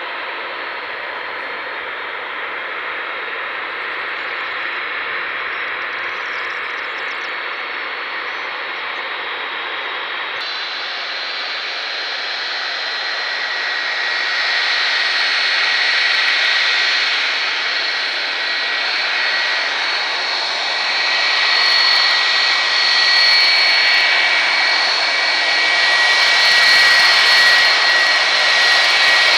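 Boeing 757's twin Rolls-Royce RB211 jet engines running as the airliner rolls along the runway after landing. The steady rush grows louder as it draws nearer, and a high engine whine becomes prominent in the second half.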